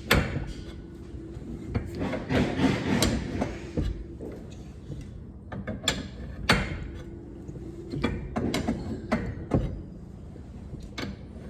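Winding bars knocking and clicking in the winding cone of a new garage-door torsion spring as it is wound up by hand: an irregular series of sharp knocks with scraping between them.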